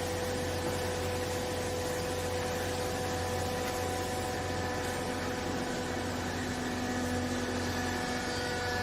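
Hydraulic used-clothes baler running, its electric motor and pump giving a steady hum with several held tones. A lower tone joins about five seconds in and stops just before the end.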